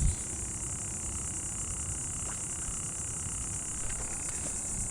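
Steady high-pitched chorus of insects, with a low rumble underneath and a short thump at the start.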